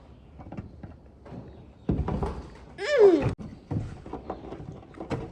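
Scattered knocks and clatter of metal parts and tools being handled on a workbench, with a thump about two seconds in. About three seconds in comes the loudest sound, a short squeal that rises briefly and then falls in pitch.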